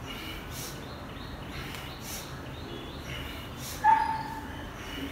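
A short, high-pitched animal call about four seconds in, slightly falling in pitch, with fainter short high calls around it.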